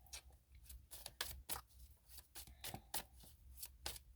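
A tarot deck being shuffled by hand, giving a quick, irregular run of short card clicks and flicks.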